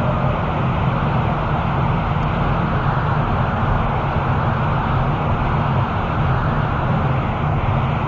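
Steady road noise of a car driving on the freeway: a low rumble with a hiss above it, unbroken throughout.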